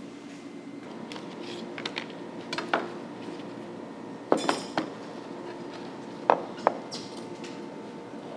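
A kitchen knife and pieces of dried mullet roe knocking and clinking on a plastic cutting board: scattered sharp taps, with two quick clusters past the middle. A steady hum runs underneath.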